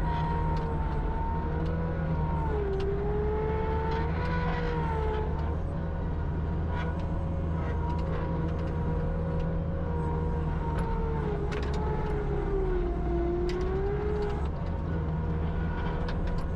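Steady low machine drone, with a wavering whine above it that slowly sags and rises in pitch several times.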